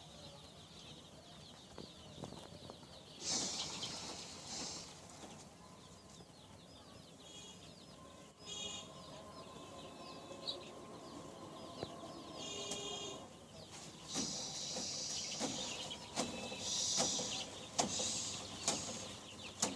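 A flock of Sonali (golden) chickens clucking and chirping, with louder squawking calls breaking out at several points and a few sharp clicks.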